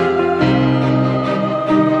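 Background music of held chords that change about every second and a half.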